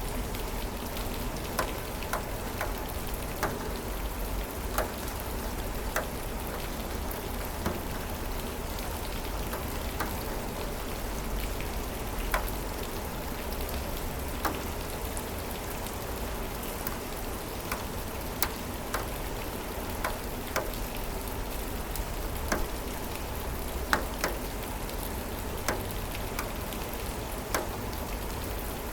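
Steady rain falling, an even hiss with scattered individual drops heard as sharp taps, a few noticeably louder than the rest.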